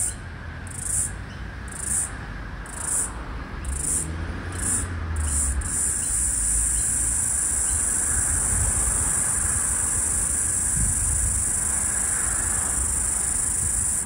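Floury baker cicada (Aleeta curvicosta) calling: short high buzzes about a second apart that come quicker and quicker, then run together into one continuous high-pitched buzz about six seconds in. Street traffic rumbles low underneath.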